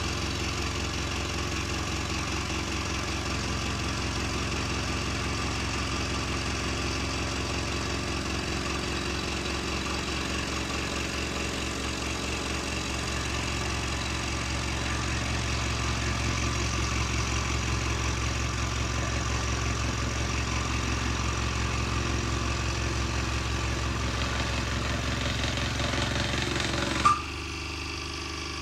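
Electric scroll saw running with its blade reciprocating through a 30 mm pine board in a wavy cut, a steady buzzing drone. Near the end there is one sharp knock as the cut comes through. The saw then runs on more quietly with the blade free of the wood.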